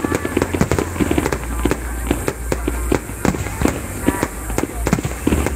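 Fireworks display going off: a dense run of sharp bangs and crackles, several a second.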